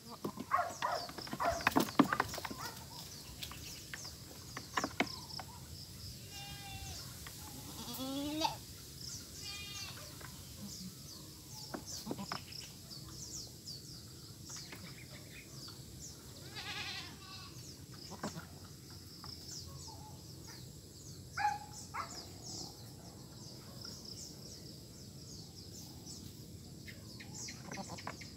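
Goats bleating several times, spaced out, one call gliding in pitch. A few sharp knocks in the first two seconds are the loudest sounds, and a steady high chirping runs underneath.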